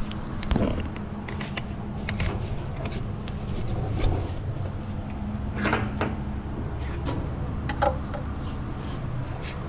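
Scattered knocks and clunks as a rubber oil hose is handled and fed into a truck engine's oil fill tube, over a steady low hum.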